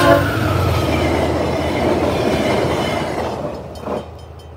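VIA Rail passenger cars, hauled by an F40PH locomotive, rushing past with wheels clattering on the rails. The locomotive's horn cuts off at the very start, and the train noise fades away over about three seconds as the last car clears, with a short thump near the end.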